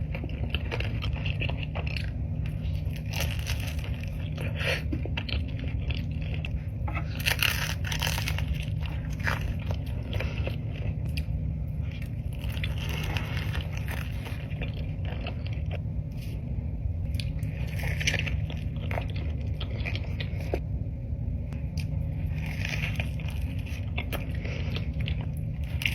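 Close-miked eating: crunchy food being bitten and chewed, with many sharp crackling crunches, over a steady low hum.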